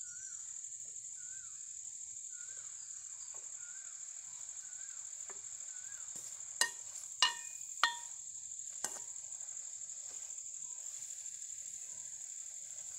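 Crickets chirring steadily and high-pitched. About six and a half seconds in, a ladle knocks against the metal cooking pan four times in about two seconds, each knock ringing briefly.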